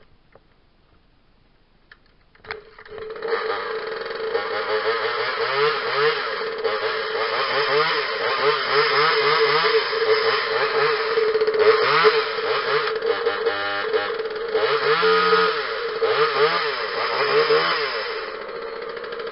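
Two-stroke engine of a 26cc Parker top-handle chainsaw pull-started and catching about three seconds in, then revved up and down again and again as it warms up, settling to a lower, steadier run near the end.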